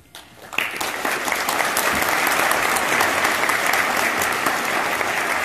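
Audience applauding at the end of a choir song. The clapping breaks out about half a second in and then holds steady.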